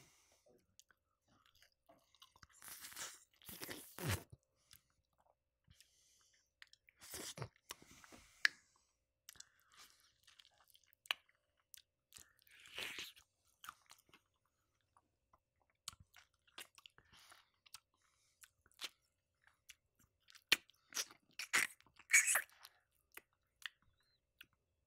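Close-up eating sounds of crispy fried chicken: crunchy bites and chewing come in several short bursts, with small wet mouth clicks between them.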